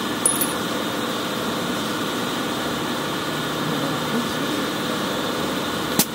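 Air compressor running steadily, with a sharp click near the end.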